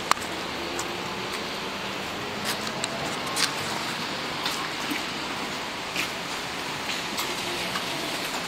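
Steady rain hiss, with irregular sharp ticks about once a second.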